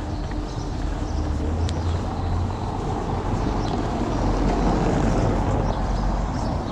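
A car driving past on a cobbled street, its tyre and engine noise swelling to a peak about five seconds in and then easing, over a steady low rumble.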